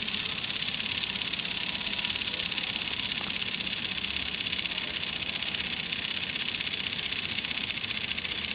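Small solar-powered motor and plastic gearbox of a kit-built toy dog running, a steady buzzing whir as it walks.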